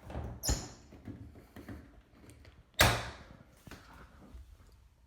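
A sharp knock about half a second in, then a louder bang near three seconds in that dies away, with smaller knocks and handling noise between.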